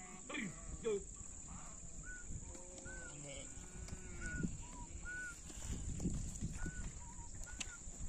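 A herd of Kankrej zebu cattle on the move, with a low call near the start and another around three seconds in, and scattered low thumps. Repeated short high chirps and a steady high hiss run underneath.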